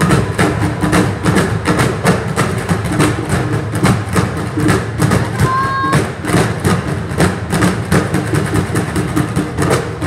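Zulu drums beaten by hand in a quick, steady beat of about four to five strokes a second, accompanying a traditional Zulu dance. A short high whistle-like tone sounds once about five and a half seconds in.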